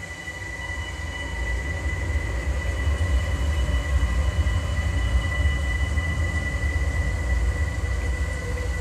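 Dark ambient drone music: a deep, heavy low rumble swells up over the first few seconds and then holds, with a steady high tone sustained above it.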